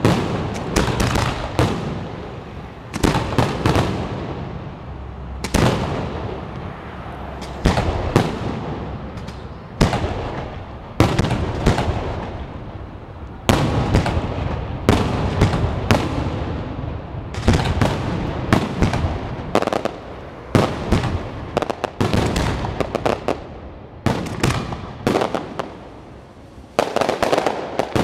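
Aerial firework shells bursting in rapid succession: sharp bangs every second or so, often in quick pairs or clusters, each trailing off in a rumbling echo.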